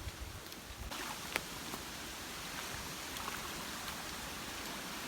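Steady rush of flowing river water, with a sharp click about a second and a half in.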